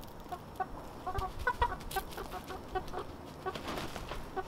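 Backyard hens clucking: many short, separate clucks scattered through, with a few faint clicks among them.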